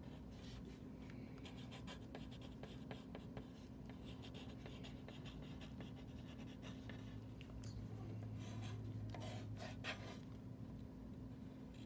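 Pencil writing and sketching on paper: short scratchy strokes of the graphite point, soft and close. A faint steady low hum runs underneath.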